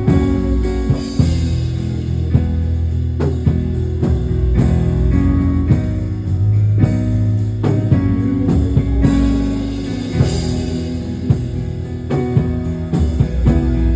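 Instrumental church music with electric guitar, bass and a drum kit playing a steady beat.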